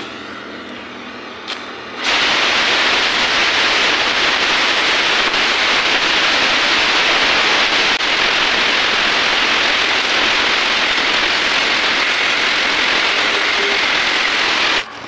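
Gas welding torch flame: a quieter lit flame at first, then about two seconds in a loud, steady hiss as the flame is turned up to a sharp heating flame on a steel arbor. The hiss cuts off abruptly just before the end.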